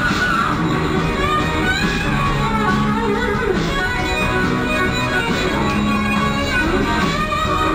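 Pop music with guitar and a steady beat.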